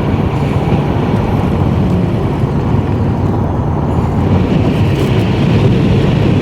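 Steady rumble of a vehicle driving, heard from inside: road and engine noise.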